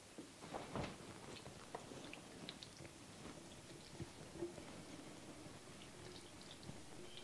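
Saucy pasta casserole mixture sliding out of a skillet and dropping into a metal baking pan: faint, soft wet squelches with a couple of light clicks.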